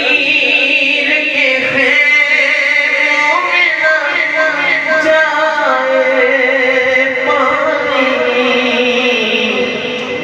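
A man singing a Muharram manqabat into a microphone, drawing out one long, wavering, ornamented phrase on held vowels. The phrase falls in pitch and fades near the end.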